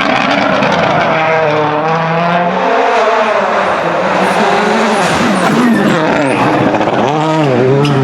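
Toyota Yaris WRC rally car's turbocharged 1.6-litre four-cylinder engine running hard at stage pace, its pitch climbing and dropping again and again through gear changes and throttle lifts, with several quick up-and-down swings near the end.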